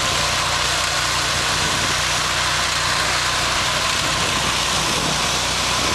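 A full-size SUV's engine running hard and steady through a burnout. The rear tyres spin on the pavement, and a continuous hiss of tyre noise sits over the low engine drone.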